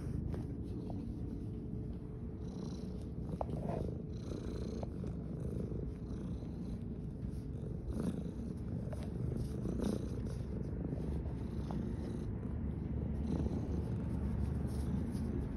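Tabby cat purring steadily right at the microphone, with a few light ticks as it nuzzles the phone.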